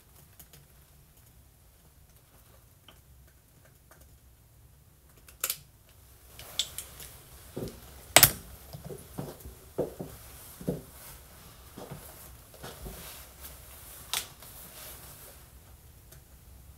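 Clicks and light knocks starting about five seconds in, the sharpest a few seconds apart: a red long-nozzle utility lighter being clicked, with things handled on a countertop.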